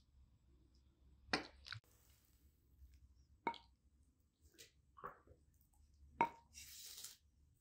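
Kitchen handling sounds: about five separate light knocks and plops of utensils and food, spaced a second or more apart, with a short hiss near the end.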